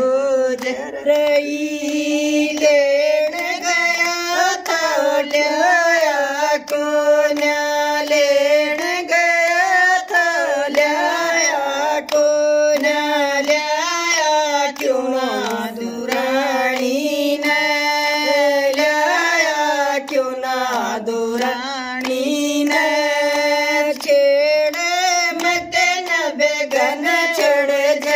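Several women singing a Haryanvi folk song (a fauji geet) together in unison, without instruments, with hand claps keeping time.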